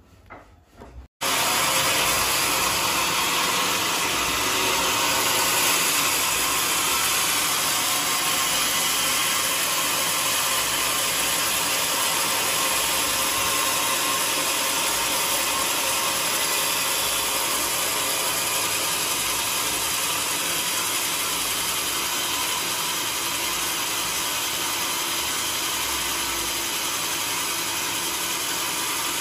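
Band sawmill cutting through a large teak log: a loud, steady whir of blade and machinery that starts suddenly about a second in and holds evenly.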